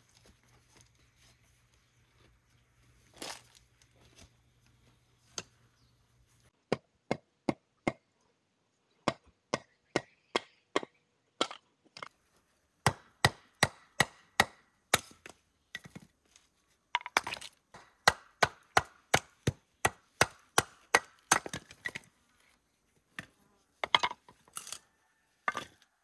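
Firewood being chopped: a run of sharp wooden strikes, roughly two a second, starting about a quarter of the way in, pausing briefly, then coming faster and closer together in the second half.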